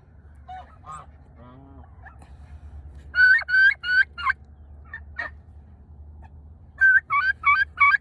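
Tom turkey gobbling twice, about three seconds in and again near the end, each gobble a quick rattling run of four or five notes. A few short, softer calls come between the gobbles, over a steady low hum.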